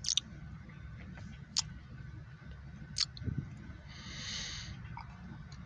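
Low, steady rumble inside a vehicle's cab, with a few sharp clicks and a short breathy hiss about four seconds in.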